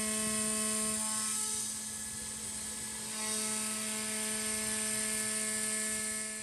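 CNC mill spindle at 16,000 rpm facing aluminium with a 16 mm indexable tool holder and aluminium-cutting inserts. It gives a steady whine made of several pitched tones over the hiss of the mist coolant's air blast. The upper tones drop away for about two seconds midway, then return.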